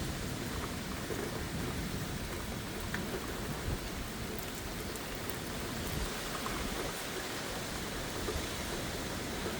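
Rain falling steadily in a severe thunderstorm, with a low rumble underneath and a few scattered ticks of drops.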